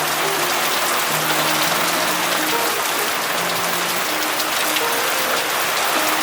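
Steady rain falling on a rooftop: a dense hiss with scattered sharp drop ticks. Soft background music with held low notes plays along with it.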